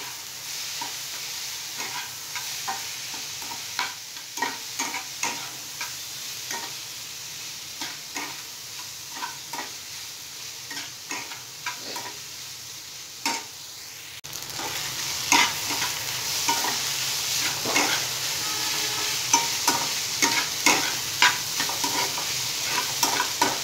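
A flat spatula scraping and tossing soaked kurdai strands with fried onion in a kadhai, with short scrapes over a steady frying sizzle. The sizzle grows louder about halfway through.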